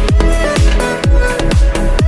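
Background electronic music with a steady, punchy kick-drum beat and a repeating synth melody.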